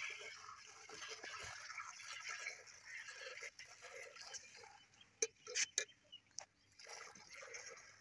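Goat being milked by hand into a stainless steel pail: short spurts of milk splashing into the milk already in the pail, one after another. A few sharp ticks stand out about five to six and a half seconds in.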